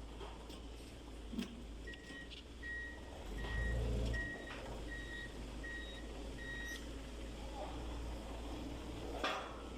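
Seven short, even electronic beeps, about two every three seconds, over a steady low hum, with a brief louder rumble in the middle and a few clicks.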